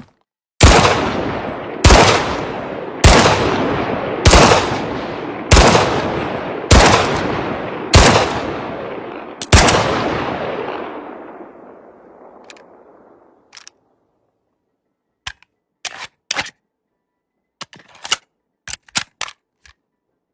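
Luger P08 9 mm pistol firing eight single shots about a second and a quarter apart, each ringing out in a long echo that dies away after the last. A few short, sharp clicks follow near the end.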